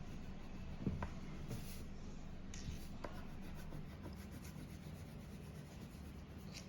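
Faint scratching and rubbing of colouring on paper, with a few light ticks, over a low steady hum.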